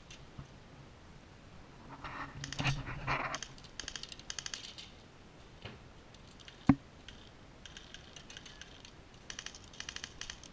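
Bursts of rapid airsoft gunfire: strings of fast, evenly spaced clicking shots that start and stop several times, with one sharper single crack about two-thirds of the way in.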